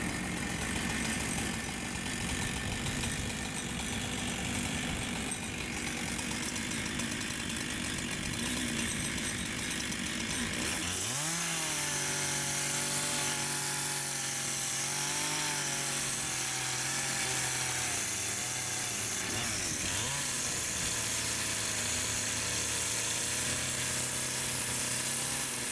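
Chainsaw running: an even noise at first, then about eleven seconds in the engine revs up to a steady high pitch, drops briefly and picks up again near twenty seconds.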